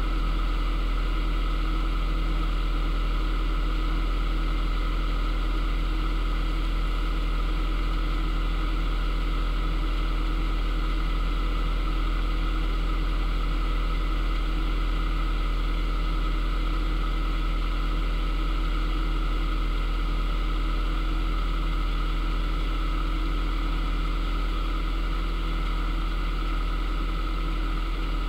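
Narrowboat's inboard diesel engine running steadily under way, an even, unchanging low drone.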